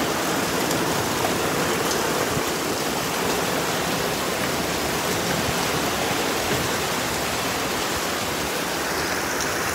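Heavy rain mixed with hail coming down hard, a dense even hiss with a few faint ticks of hailstones striking.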